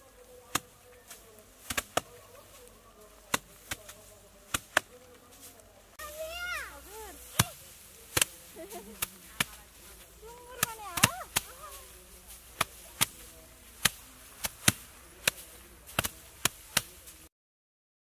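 Bundles of harvested rice straw being beaten down onto the threshing ground by several people to knock the grain loose: a run of sharp, uneven thwacks, roughly one or two a second. The thwacks stop abruptly near the end.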